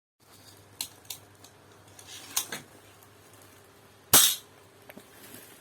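A small pistol handled with a few light clicks, then firing one sharp, loud shot about four seconds in.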